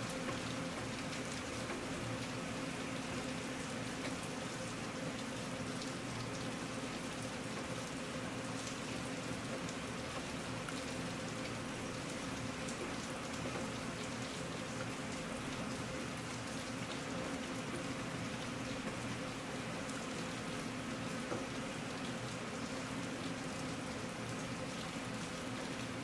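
Steady rain falling, an even hiss of water with many small drop ticks, over a faint steady low hum.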